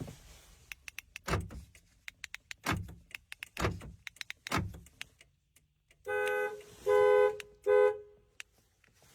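Remote test on a 2011 Toyota Camry with a newly programmed key fob: the door locks clunk several times among small sharp clicks, then the car's horn sounds three short honks about six seconds in, answering the remote.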